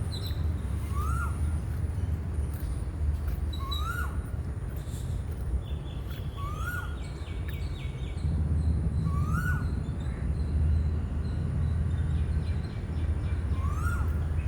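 Birds calling in a garden: one bird repeats a short call that rises and then falls, five times at intervals of about three seconds, while other birds chirp higher and fainter. A steady low rumble runs underneath.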